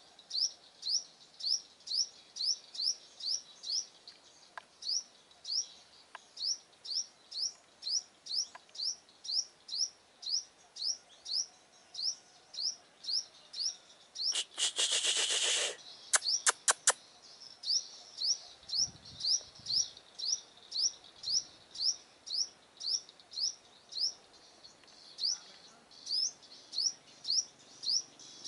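Sunbird calling without pause: a rapid, regular run of short rising chirps, about two or three a second. About halfway the chirping breaks for a loud rustling burst of about a second and a half, then a quick run of five or so sharp clicks, and the chirping goes on.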